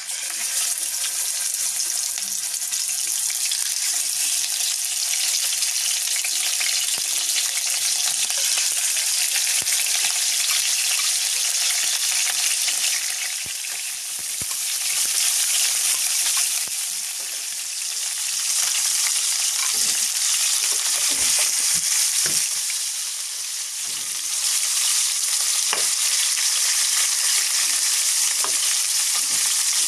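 Raw chicken pieces sizzling in hot oil in a frying pan; the sizzle starts suddenly as the first piece goes in and swells and eases as more pieces are added. A few short knocks of the spoon against the pan come around twenty seconds in.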